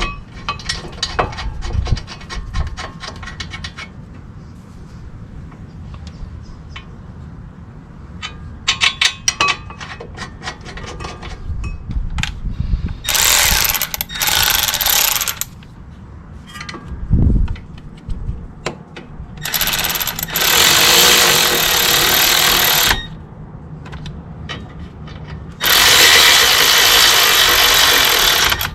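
A socket ratchet clicking in quick runs as bolts are run in, then three long hissing sprays of an aerosol brake cleaner can, the longest about three seconds.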